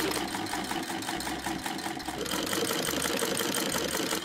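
1911 Singer 28K hand-crank sewing machine stitching at a steady pace: a rapid, even clatter of the needle bar and shuttle mechanism.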